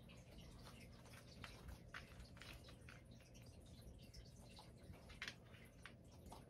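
Near silence: faint room tone with scattered soft ticks and rustles as a puppy gets up and pads across a duvet. The clearest tick comes about five seconds in.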